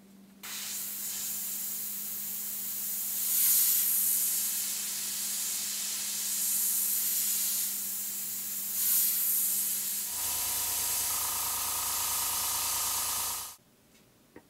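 Gravity-feed airbrush spraying paint: a steady air hiss that starts about half a second in and swells louder twice. About ten seconds in, a low steady hum joins it, and both cut off suddenly about a second before the end.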